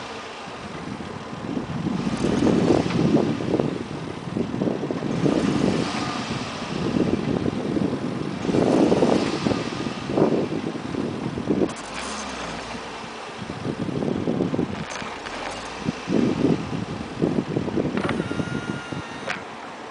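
Volvo S80 on the move, heard from outside at the left door mirror: steady road and wind noise with irregular gusts of wind buffeting the microphone every second or two. A faint high tone briefly sounds near the end.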